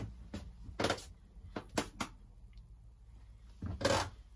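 A few short knocks and rustles from handling and moving about in a small cabin, with a longer rustle near the end, over a low steady hum.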